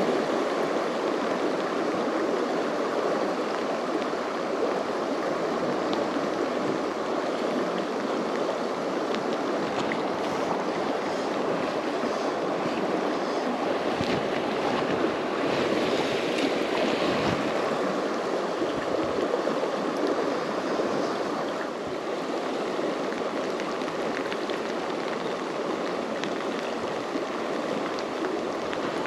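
A fast-flowing river rushing steadily.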